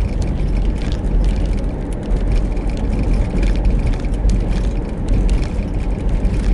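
Noise inside a moving car's cabin: a steady low rumble of road and engine, with scattered small clicks and rattles.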